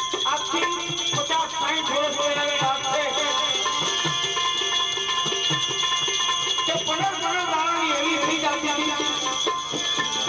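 Gujarati folk music: a melody that bends and slides over a steady drum beat, with jingling percussion.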